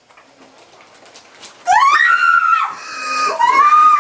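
Woman in labor crying out in two long, high-pitched wails, the first rising sharply in pitch, the second held.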